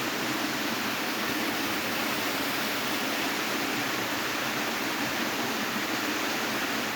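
Steady rush of running water, an even noise that does not change.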